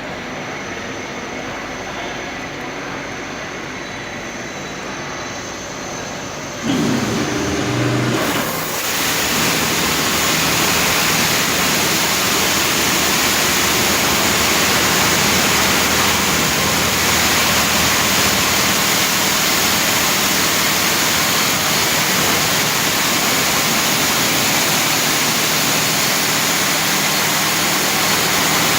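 Heavy-duty automatic vehicle wash machine running: a steady machine hum, then about seven seconds in a short whine and a jump in level as a loud, steady rushing hiss comes on and keeps going.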